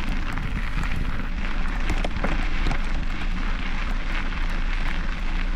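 Wind buffeting the microphone of a handlebar-mounted camera on a moving mountain bike, with steady tyre noise on the trail and frequent small clicks and rattles.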